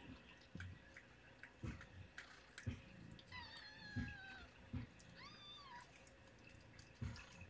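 Newborn kitten crying twice in a high, thin voice, a slightly falling cry of about a second and then a short rising-and-falling one, while it is being licked at by the adult cats. Several dull low thumps come in between.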